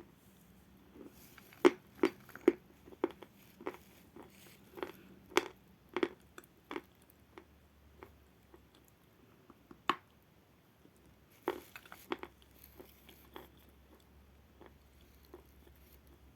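Biting and chewing a piece of natural edible chalk, close to the microphone: irregular sharp crunches, frequent at first, then a single loud one and a short cluster, fading to faint chewing near the end.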